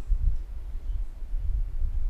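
A low, uneven rumble, with no speech or music over it.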